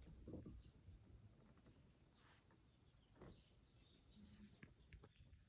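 Faint snoring of a sleeping American Shorthair cat: soft breaths about every three seconds over a steady high-pitched whine.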